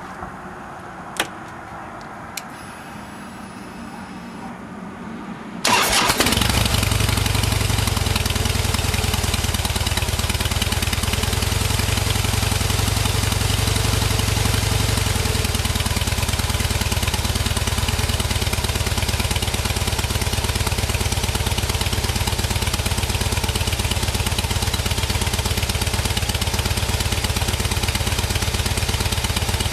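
A couple of clicks and a faint whine, then a 2011 Harley-Davidson Heritage Softail's V-twin engine starts about six seconds in, breathing through its stock exhaust with drilled-out baffles. It settles into a steady idle that eases down a little about halfway through.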